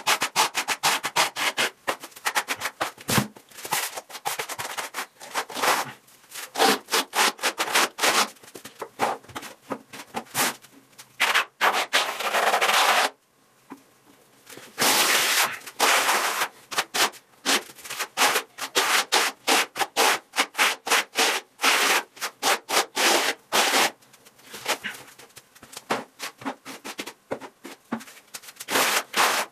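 Steel float and wide spatula scraping a lime-based skim coat across a wall in quick repeated strokes, several a second, with a short pause of about a second and a half just after the middle.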